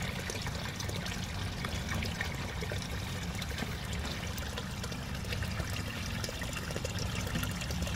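Water pouring and trickling steadily into a sump pump basin as it fills, before the pump switches on.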